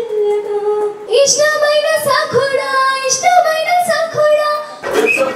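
A girl singing a slow melodic song into a handheld microphone, holding long notes that glide between pitches, with a brief breath about a second in.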